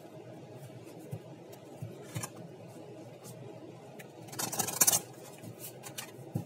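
A deck of tarot cards being shuffled by hand: soft scraping and a few light card clicks, with one louder rush of cards sliding against each other about four and a half seconds in.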